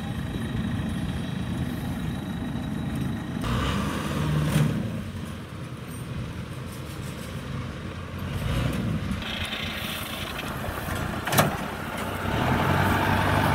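Engines of rice-harvesting machinery running steadily: first a Kubota DC60 combine harvester, then, from about three and a half seconds in, a small tracked machine carrying rice sacks driving across the stubble. There is a single sharp click or knock near the end.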